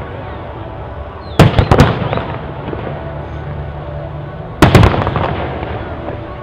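Aerial fireworks bursting: a quick cluster of sharp bangs about a second and a half in and another near five seconds, each dying away in a rolling echo.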